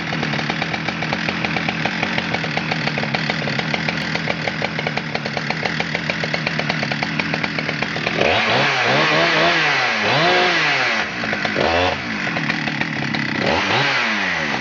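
Husqvarna 394 XP chainsaw's 94 cc two-stroke engine idling with an even firing beat. From a little past halfway it is revved up and back down to idle several times in quick blips.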